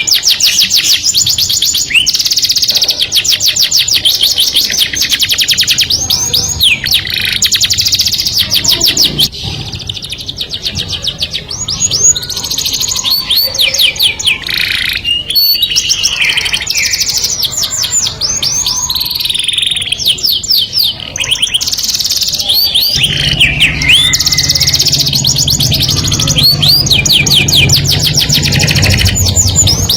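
Canary singing: long phrases of fast repeated high trilled notes, with short breaks between phrases.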